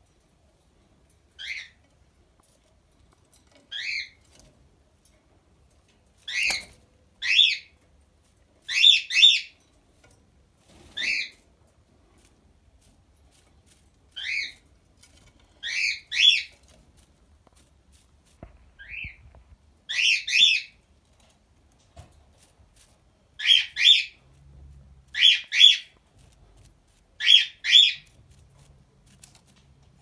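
A 17-day-old white dove squab giving short, high-pitched squeaky peeps. About twenty of them are spread through the stretch, many coming in quick pairs.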